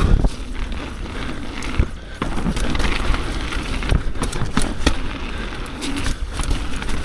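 Mountain bike riding down a rough, wet trail: tyres rolling over dirt, roots and rocks, with frequent knocks and rattles from the bike's frame, chain and suspension.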